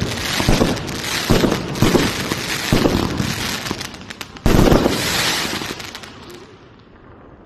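Fireworks going off: a quick run of launch shots, bangs and crackle, with a loud burst about four and a half seconds in, then fading away near the end.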